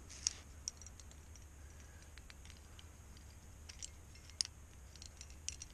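Scattered light metallic clicks and clinks of climbing gear, carabiners and cams on the harness rack, as the climber moves and handles protection, irregular with two sharper clinks near the start and about two thirds of the way in. A low steady rumble runs underneath.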